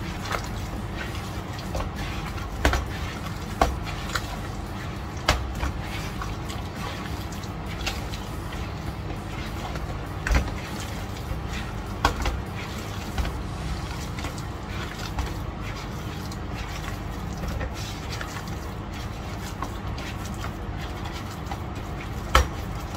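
Hands squishing and kneading raw sausage meat in a plastic bowl: wet squelching with scattered sharp knocks against the bowl, over a steady low hum.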